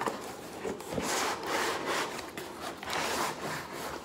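Brown packing paper rustling and scraping as sheets are pulled from between stacked plates, in two longer swells, about a second in and about three seconds in.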